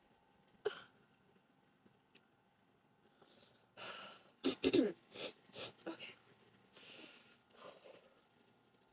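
A woman's breathing while crying: a short sniff early, then from about three seconds in a run of sniffs, heavy breaths and quick breathy huffs that edge into half-laughter.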